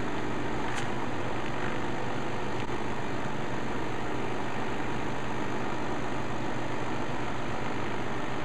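Thermal tattoo-stencil copy machine running steadily, its rollers drawing the thermal copy paper through as it prints the stencil. A light tick sounds about a second in.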